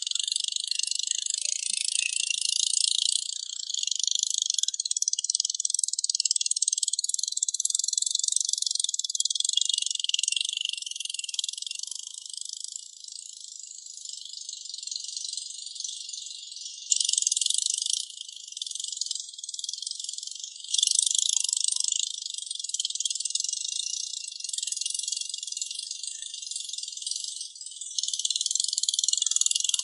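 High-pitched insect chorus buzzing continuously. Its loudness jumps abruptly up and down a few times.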